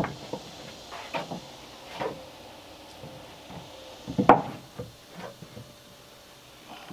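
Loose wooden boards knocking against each other and against a wooden plank deck as they are handled and laid out, a few scattered knocks with the loudest a little past four seconds in.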